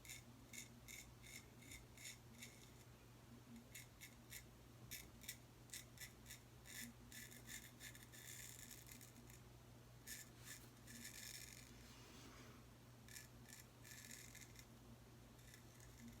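Boker Tree Brand straight razor scraping through stubble and lather on a first pass: faint, short strokes, often several a second in quick runs, with a few longer drawn strokes.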